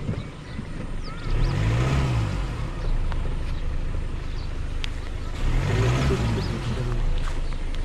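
Road traffic: two motor vehicles passing by, the first about two seconds in and the second about six seconds in, each swelling and fading over a steady low rumble.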